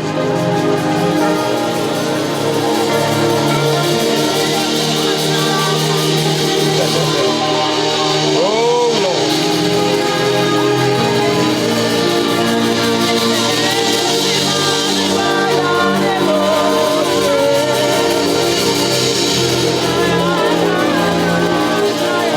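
Slow worship music: chords held on sustained notes under a wavering melody line.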